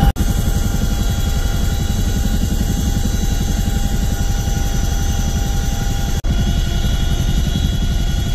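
Loud cabin noise inside a CH-47 Chinook helicopter in flight: a rapid, even rotor beat under steady high whining tones. The sound drops out for an instant twice, right at the start and about six seconds in.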